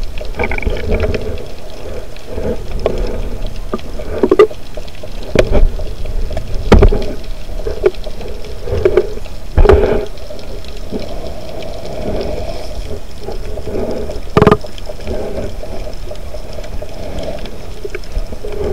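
Muffled underwater water noise picked up by a camera held just below the surface, steady throughout, with a handful of sharp clicks and knocks.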